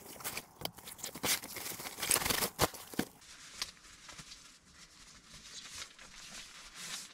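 Irregular rustling, crinkling and clicking handling noises, busy for the first three seconds and then quieter and sparser.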